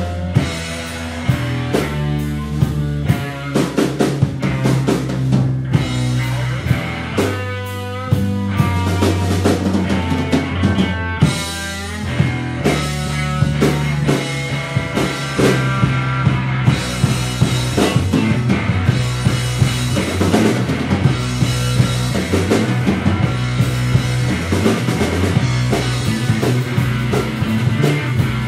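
Live psychedelic rock band playing loudly: electric guitar, bass guitar and drum kit.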